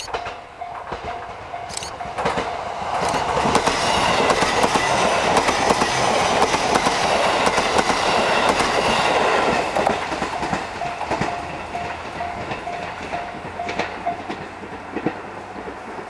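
JR East E531-series electric train passing at speed, its wheels clacking over the rail joints; the noise builds over the first few seconds, is loudest in the middle and fades after about ten seconds. A level-crossing warning bell rings in a steady quick beat at the start and again near the end, when the train noise drops.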